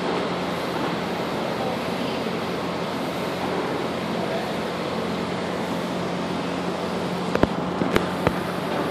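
Steady rushing background noise with a constant low hum, like machinery or ventilation running, and three sharp clicks close together near the end.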